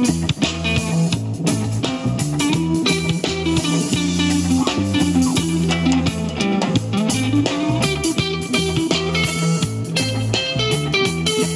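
Live rock band playing an instrumental passage without singing: electric guitar over bass guitar and a drum kit keeping a steady beat.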